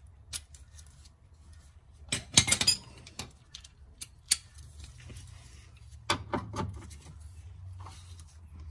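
A socket wrench and sockets clinking and rattling as they are handled: a short metallic clatter a little over two seconds in, a couple of single clinks around four seconds, and another clatter about six seconds in, over a steady low hum.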